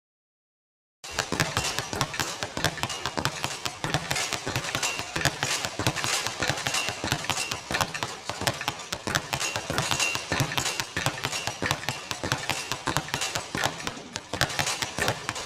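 Basketballs bouncing on a hard court, many dribbles overlapping in a quick irregular patter, with brief high squeaks now and then. It cuts in about a second in, after a moment of silence.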